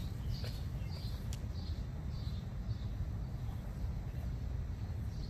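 A bird calling outdoors: a series of short, high chirps about twice a second, thinning out after the first few seconds, over a steady low rumble.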